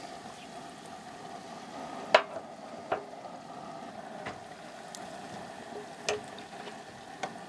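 Beef ribs deep-frying in a turkey-fryer pot of hot oil, a steady bubbling sizzle. A few sharp clinks cut through it, the loudest about two seconds in.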